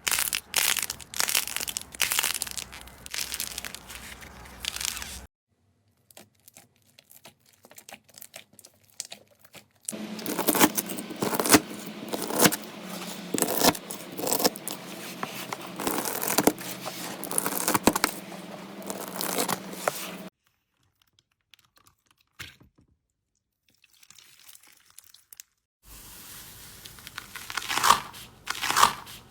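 Slime being squeezed, poked and stretched by hand, giving dense crackling, popping and crunching. The sound comes in several separate stretches: busy for the first few seconds and again from about ten to twenty seconds in, with quieter, sparser crackles between them.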